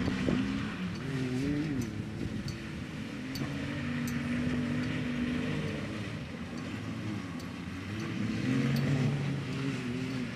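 Vehicle engine running while driven off-road, its pitch rising and falling with the throttle, with scattered light clicks and rattles.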